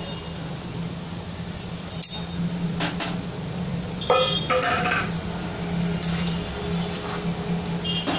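A metal spoon clinking and knocking against an aluminium kadai of frying potato fries. The clinks are sharp and scattered from about two seconds in, and a few ring on briefly near the middle. A low steady hum runs underneath.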